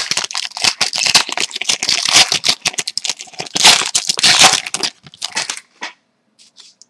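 Foil wrapper of a trading-card pack crinkling and tearing as it is ripped open by hand, a dense run of crackles that stops about five and a half seconds in. A few faint clicks follow.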